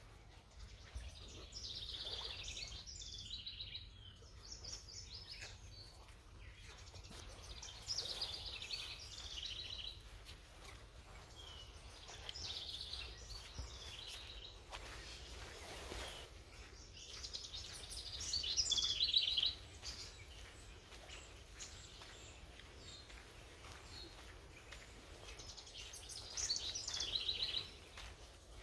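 A songbird singing the same short, high song about five times, each song a second or two long, over low background noise.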